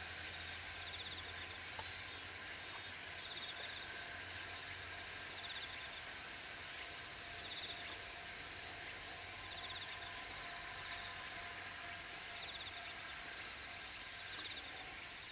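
Summer insect chorus: a steady, high-pitched chirring with a shorter pulsed call repeating every second or so.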